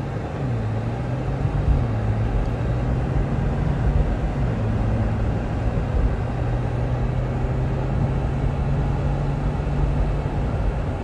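Car on the move: a steady road-noise rush with a low engine hum whose pitch steps up and down several times as the speed changes.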